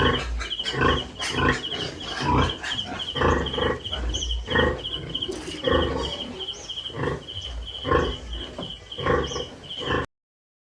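Pigs in a pen giving loud grunts, about one a second, over a steady high pulsing chirp. The sound cuts off abruptly about ten seconds in.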